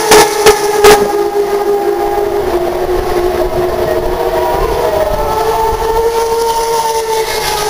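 Turismo Carretera race cars' engines running at high revs, a sustained multi-note wail whose pitch slowly shifts as several cars change speed. Three sharp knocks stand out within the first second.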